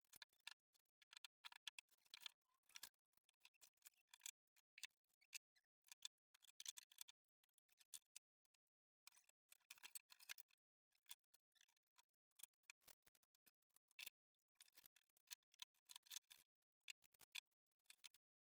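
Near silence, broken by faint, irregular clicks and rustles.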